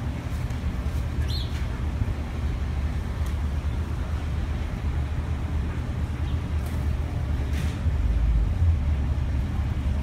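Low steady rumble of wind on the microphone and distant traffic, heavier for a moment near the end. A small bird gives one short chirp about a second and a half in.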